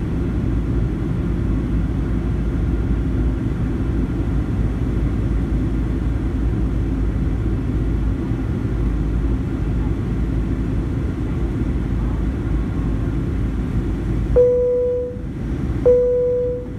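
Steady low rumble of engine and airflow noise inside the cabin of a Boeing 737-800 on descent. Near the end, two identical cabin chimes sound about a second and a half apart.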